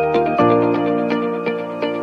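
Background music: quick plucked notes over a sustained bass note.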